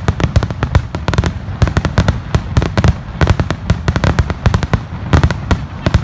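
Aerial fireworks shells bursting in a rapid barrage: deep booms overlapping with many sharp cracks, several a second without pause.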